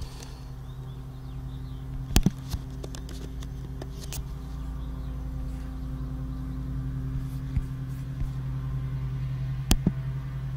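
A steady low mechanical hum, slowly growing louder, with a few sharp clicks.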